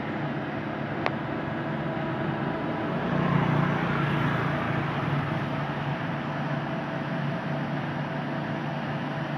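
Yanmar YH850 combine harvester running steadily with an even hum, swelling louder for a couple of seconds midway. A single sharp click about a second in.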